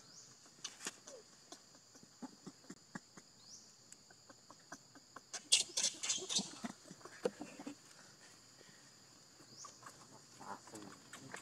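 Dry leaves and gravel rustling and ticking under a baby long-tailed macaque as it crawls and scampers over the forest floor, with a louder flurry of rustling about halfway through as it runs. A steady high insect buzz runs underneath.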